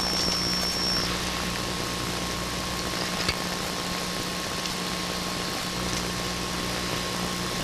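Steady hum and hiss, with a high electronic beep held for about a second at the start as a pen-type diamond tester probe is touched to a stone. A faint click comes about three seconds in.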